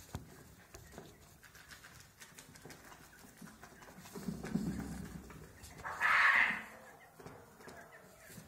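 Japanese quails scratching and pecking in straw bedding and a dust-bath tray: small scattered ticks and scratches, a low rustle around four to five seconds in, and a short louder burst about six seconds in.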